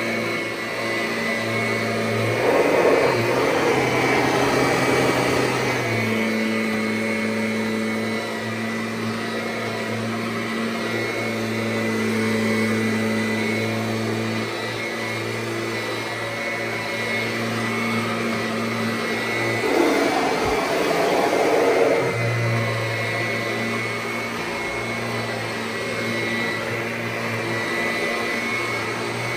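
1999 Kirby G6 upright vacuum cleaner running steadily while vacuuming carpet: a constant motor hum and whine. Twice, a few seconds in and again about two-thirds through, a louder rushing noise swells over the hum for a few seconds.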